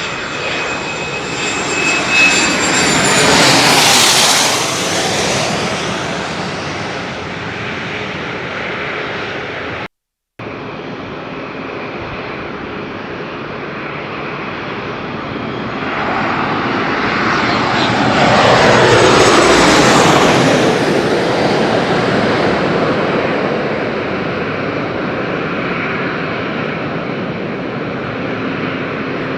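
Two jet airliners passing close by one after the other. Each is a swell of engine noise with a high whine that falls in pitch as the plane goes past, the first loudest about four seconds in and the second about twenty seconds in. The sound cuts out completely for a moment about ten seconds in.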